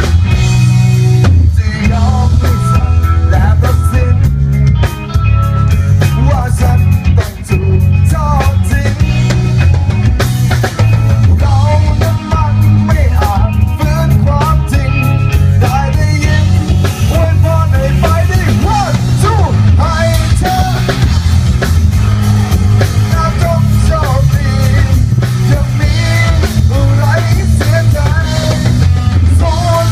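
Live rock band playing through a PA with a man singing into a microphone, very loud and heavy in the bass, with electric guitar in the mix.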